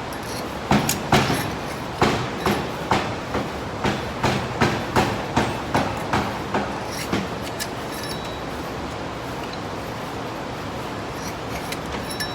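Hand-tool work under the hood: a run of about twenty sharp metallic clicks or knocks, two or three a second, that stop about seven and a half seconds in, leaving a steady shop background noise.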